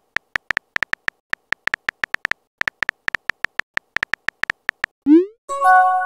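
Texting-app keyboard sound effect: a quick, uneven run of identical soft clicks, one per typed letter. About five seconds in comes a rising swoop and then a short bright chime of a few steady tones as the message is sent.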